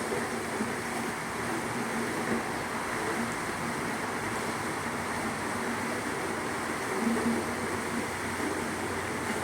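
Steady running noise of a moving train, an even rushing sound with a faint low hum.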